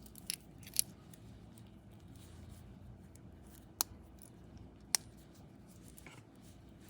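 A few small, sharp clicks over faint room tone: two light ones within the first second, then two crisper ones in the middle, about a second apart.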